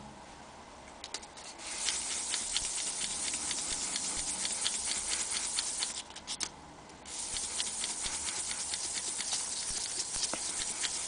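Small metal gauge being rubbed by hand on fine sandpaper (about 800 grit), a scratchy rasping in quick back-and-forth strokes, starting about two seconds in, pausing briefly around the middle, then resuming. It is the final fine sanding to take the gauge down a thousandth of an inch to its finished thickness.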